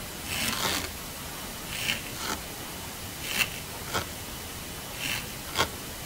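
Yellow garden slug (Limax flavus) feeding, its rasping mouthparts scraping at food: about seven short, dry scrapes, several coming in close pairs.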